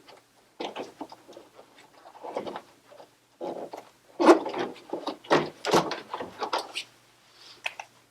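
Irregular knocks, clicks and scrapes of tools and washing-machine parts being handled during disassembly. The loudest clunks come a little past the middle.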